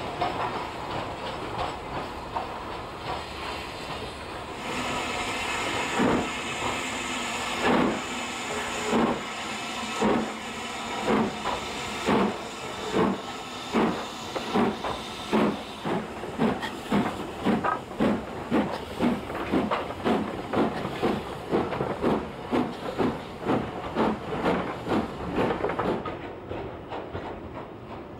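Steam locomotive getting under way: a hiss of steam swells about five seconds in, then exhaust chuffs begin slowly and quicken steadily to nearly two a second, before the sound drops away near the end.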